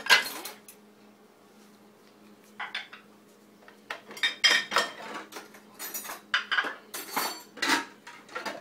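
Metal cutlery clinking and clattering: one sharp clink at the very start, a couple more near three seconds in, then a quick run of clinks and rattles over the last four seconds as the pieces go into a kitchen drawer.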